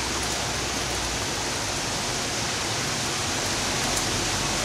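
Steady, even rush of heavy rain and running floodwater.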